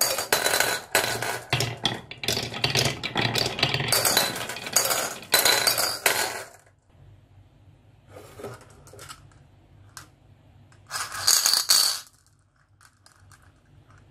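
Glass marbles rolling and rattling down wavy wooden HABA slope tracks and clinking into ceramic and plastic bowls, a dense clatter that stops about six and a half seconds in. A few stray clicks follow, then one more short clatter of marbles in a bowl about eleven seconds in.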